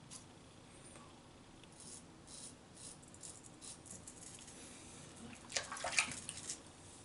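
GEM single-edge safety razor scraping through lather and stubble in short, faint strokes; about five and a half seconds in, a brief clatter of clicks and knocks as the razor is handled at the sink.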